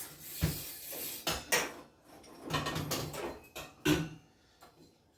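Metal and plastic shower fittings clinking and knocking as they are handled and fitted back on: a string of separate clicks and clanks, stopping about four seconds in.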